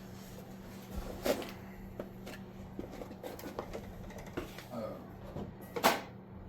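Hands working with wiring and small parts: scattered light clicks and rustles, with a sharp knock about a second in and a louder one near the end, over a low steady hum.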